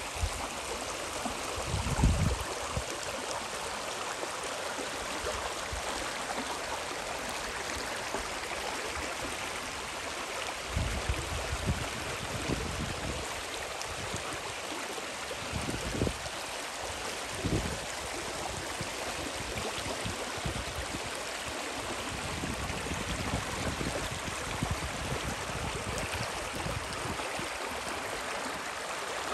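The Spree river rushing steadily, with a few short low thumps over it, the loudest about two seconds in.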